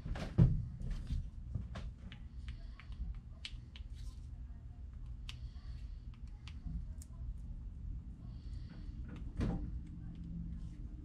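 Scattered clicks and knocks of things being handled and set down, with a heavier knock about half a second in and another near the end, over a steady low hum.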